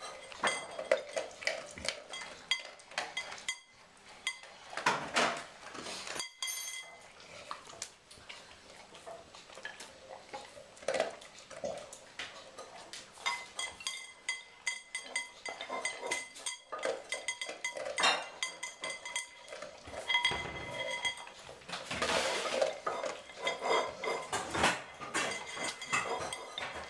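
A Welsh springer spaniel eating from a glazed ceramic bowl: irregular clinks and knocks against the bowl, some of them ringing briefly.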